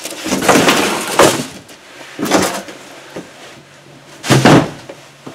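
Cardboard box being handled on a wooden workbench: several bursts of scraping and rustling, the loudest a dull knock about four and a half seconds in.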